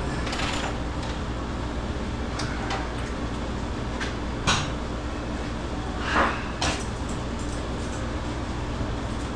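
Intermittent metal clanks, knocks and a short scrape from handling the steel hanging rail and tools, over a steady machine hum. The sharpest knock comes about halfway through, followed by a longer clanking scrape.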